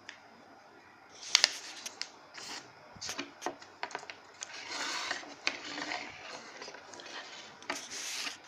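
A sheet of printer paper being folded in half and creased flat on a wooden table: paper rustling and crackling with sharp taps, starting about a second in, and longer rubbing strokes along the fold around the middle and again near the end.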